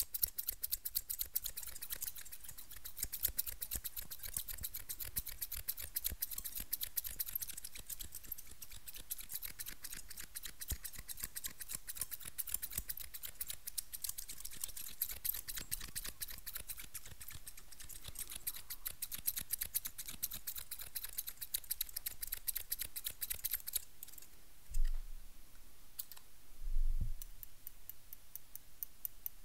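Two pairs of scissors, steel barber shears and a white-handled pair, snipping rapidly and continuously close to a microphone. About four-fifths of the way through the snipping stops, and two dull low thumps follow, then lighter, sparser clicking.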